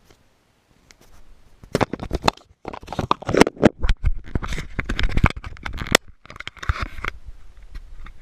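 Close handling noise from a GoPro camera: a quick run of plastic clicks, taps and scrapes, with some low thumps on the microphone, as the SD card is put in. It starts about a second in.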